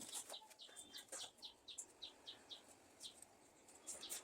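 A small bird chirping faintly in a quick, even series of short high notes, about four a second.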